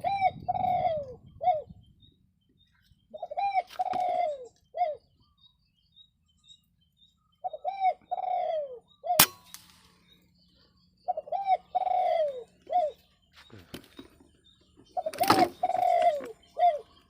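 Spotted dove cooing: five phrases, each a short run of three or four rolling coo notes, repeating about every four seconds. A single sharp click comes about nine seconds in.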